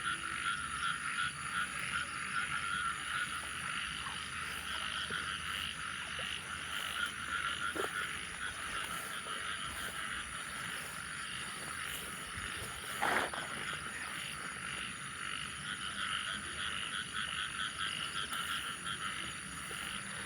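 Chorus of many frogs croaking continuously, a dense steady din of overlapping calls, with a thin steady high-pitched tone above it.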